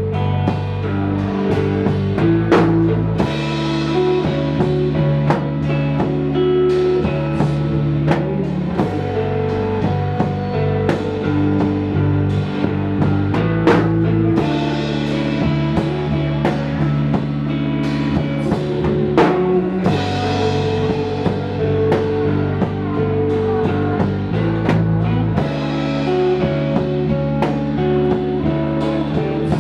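Live rock band playing: guitars and bass over a drum kit, with chords that change every few seconds and several cymbal crashes.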